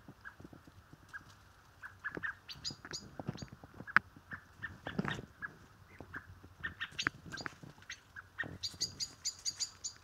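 Blackbirds calling: short chirps repeated every half second or so, with runs of quick, higher chips that come and go. A sharp click about four seconds in and a brief rustle in the twigs and leaf litter just after.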